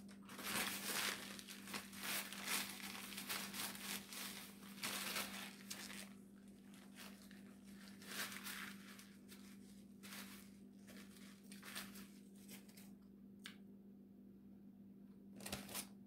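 Paper napkin crinkling and rustling as it is unfolded and used to wipe hands and mouth, busiest in the first six seconds and thinning out to a lull near the end.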